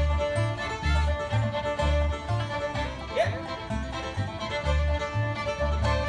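Bluegrass trio playing: fiddle holding long notes over banjo picking, with the upright bass sounding about two notes a second.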